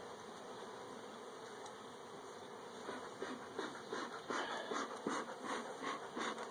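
Honeybees buzzing around open hive combs; from about three seconds in, a bee smoker's bellows is pumped in quick repeated puffs, louder than the buzz.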